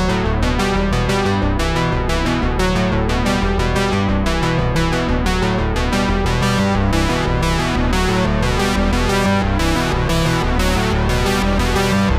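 Background music: synthesizer and keyboard with a quick, steady beat.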